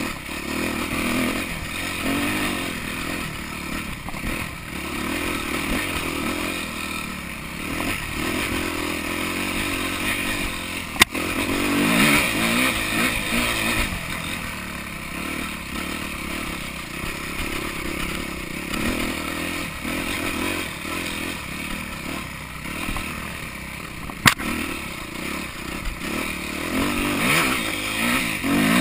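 Yamaha YZ250F's single-cylinder four-stroke engine, heard close up from the handlebars, rising and falling with the throttle as the bike rides a trail. Two sharp knocks stand out, one about a third of the way in and one later.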